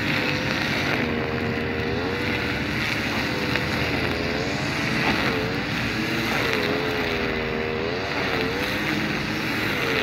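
Diesel engine of a ballast work train running steadily, its tone wavering up and down in pitch over a steady rushing noise.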